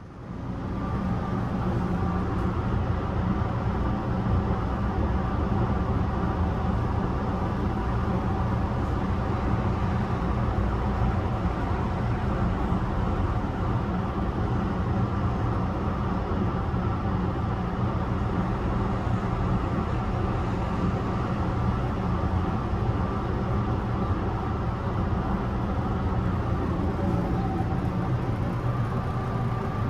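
Yokkaichi Asunarou Railway 260-series narrow-gauge electric train running at a steady speed, with an even hum from its nose-suspended traction motors over the running noise of the wheels. The sound comes in sharply at the start and then holds steady.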